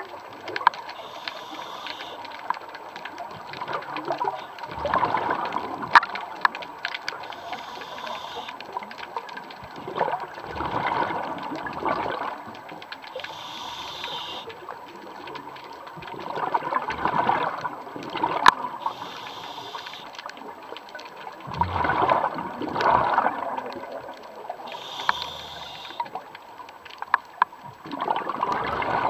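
Scuba diver breathing underwater through a regulator: a short hiss on each inhale, then a rush of exhaled bubbles, about five breaths some six seconds apart. A couple of sharp clicks stand out.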